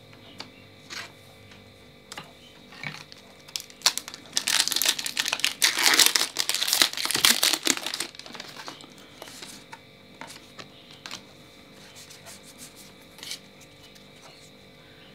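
Foil Pokémon booster pack wrapper crinkling and tearing open, loudest from about four to eight seconds in, with scattered light taps of cards being handled before and after.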